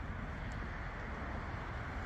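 Steady outdoor background noise: a low rumble with a softer hiss above it, with no distinct event.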